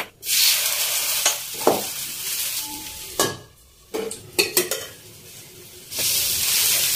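Batter fritters sizzling as they fry in hot oil in a frying pan. A metal lid clanks down a little after three seconds and the sizzle drops; near the end the lid comes off and the sizzle is loud again as a steel spatula works the fritters.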